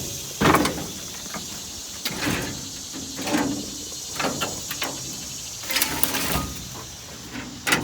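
Scattered clunks and scrapes of metal from an old truck exhaust being pulled and worked by hand, stuck fast and not moving. Insects chirr steadily behind.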